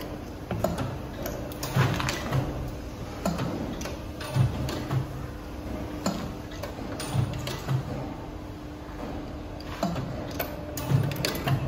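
Hydraulic die-cutting and stamping press running: a steady hum from its hydraulic pump, with clunks from the press strokes every second or two, often in close pairs.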